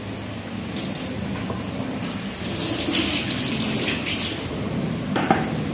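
Kitchen tap running water over mustard greens rinsed by hand in a stainless-steel sink, the splashing a little fuller for a second or two in the middle.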